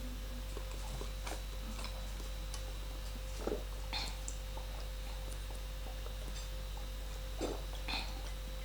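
Quiet eating of pasta close to the microphone: a few faint, short clicks and soft mouth noises spread through, over a steady low electrical hum.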